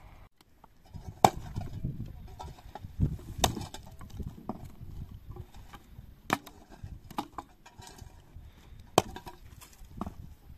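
Dry firewood being chopped and broken with an axe: four sharp strikes a few seconds apart, with lighter knocks and cracks of wood between them.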